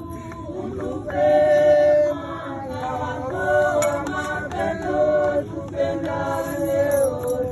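A group of voices singing unaccompanied in long held notes, like mourners singing together. It is loudest about a second in.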